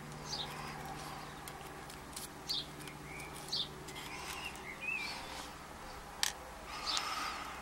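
A small bird chirping in the background, short falling chirps every second or two, with a couple of sharp clicks from small lock parts being handled and a steady low hum underneath.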